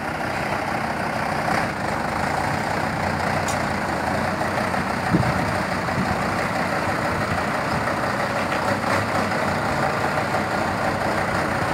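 Diesel engine of a loaded three-axle dump truck running steadily at low speed as it manoeuvres into position to tip its load of earth, with one short knock about five seconds in.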